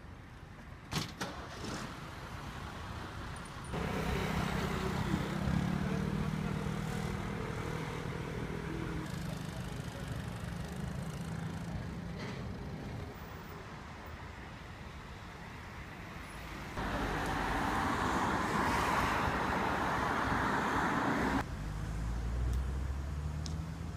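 Road traffic and car engines running, in several segments that change abruptly. One stretch holds a steady engine idle, a later one a louder rushing noise like a car going by close, and near the end a low engine rumble.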